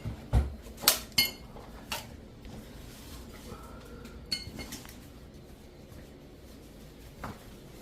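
Sharp metallic clinks and knocks from a metal tool working baseboard trim loose from the wall. Four strikes come in the first two seconds, two of them ringing; there is one more about four seconds in and another near the end.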